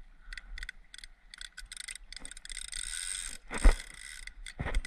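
Rapid, uneven clicking of a big conventional trolling reel and rod gear as the line is handled, with a short hiss about two to three seconds in and one heavy thump a little past halfway.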